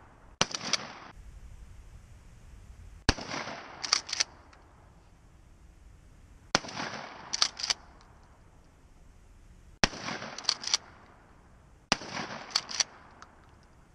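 Remington 870 pump-action shotgun fired five times, a few seconds apart. After each shot, about a second later, comes a quick clack-clack of the pump being racked to chamber the next shell.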